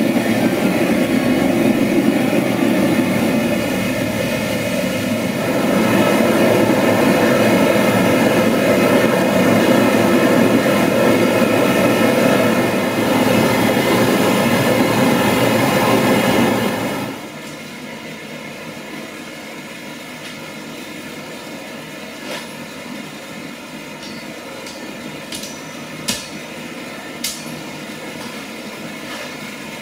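Gas forge burner running with a loud, steady rushing noise. About seventeen seconds in it drops sharply to a much quieter steady hiss, and a few sharp clinks sound near the end.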